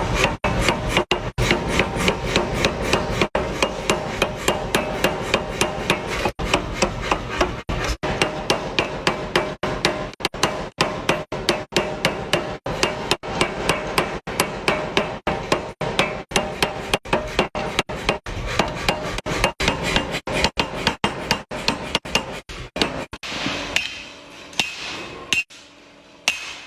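Hammer striking metal in a steady run of blows, about three a second, each ringing; the blows thin out and stop near the end.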